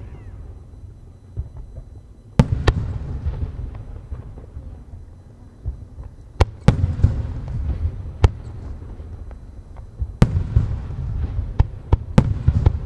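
Aerial firework shells bursting overhead: a string of sharp bangs, several in quick pairs, each trailing off into a low rolling rumble.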